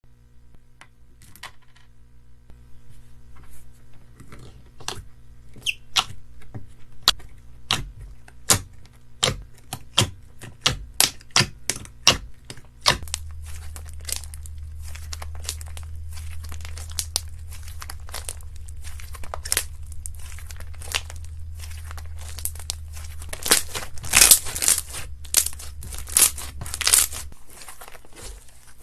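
Slime being handled: sharp pops and clicks that come faster and faster over the first half, then crinkly, crackling sounds over a steady low hum, with the loudest crackling near the end.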